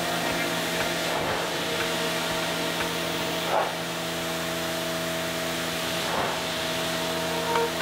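Pressure washer jet spraying and rinsing grime and moss off a car's hood: a steady hiss of water over a constant hum, swelling briefly a few times as the wand sweeps across.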